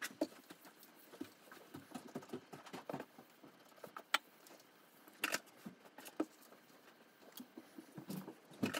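Soft, irregular clicks and taps of hands handling and placing cut strawberries onto a whipped-cream-covered sponge cake, with one sharper click about four seconds in.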